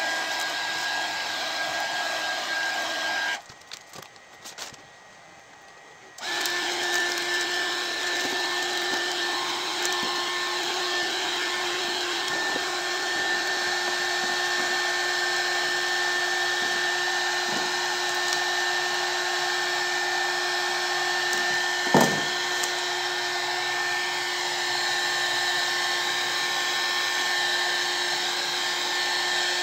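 A 300 W mini hot air gun's fan running with a steady whine, used to shrink plastic wrap around product boxes. About three seconds in it cuts out, and it starts again about three seconds later. A single knock comes late on.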